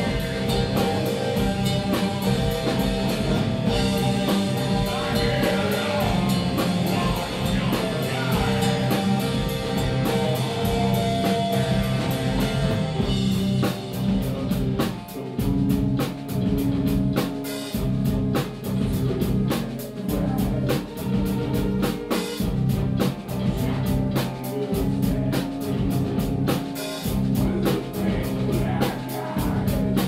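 Live rock band playing: electric guitar and bass chords over a drum kit, with a singer at the microphone. About halfway through, the drums come to the fore with a steady, evenly spaced beat.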